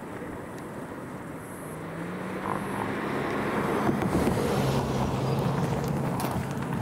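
A road vehicle driving past, its engine and tyre noise growing louder from about two seconds in and peaking near the middle.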